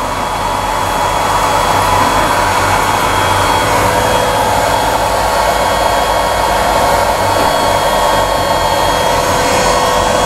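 Longer B1 30 W laser engraver running a job, its air-assist pump blowing steadily. The noise grows louder over the first couple of seconds and then holds even.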